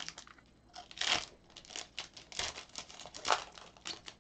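Foil trading-card pack wrapper crinkling and cards rustling as they are handled, in a run of short dry swishes, with louder ones about a second in and past three seconds in.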